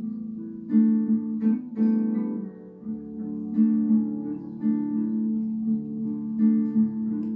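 Recorded acoustic guitar music, strummed chords ringing on with a fresh strum every second or so, played back as a listening test of an FX-Audio 502EL mini class-D amplifier.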